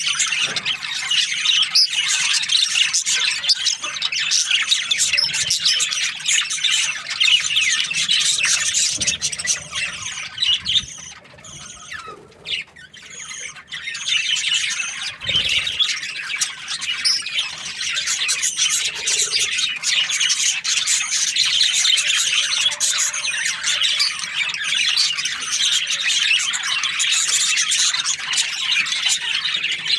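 A flock of budgerigars chirping and squawking in a dense, continuous high chatter. The chatter thins out for a few seconds just before the middle, then builds back up.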